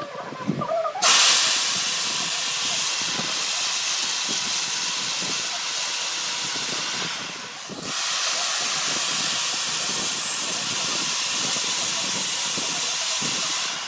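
A few knocks, then an electric chainsaw starts cutting into a chunk of log about a second in. It pauses briefly just past halfway, then cuts on until near the end.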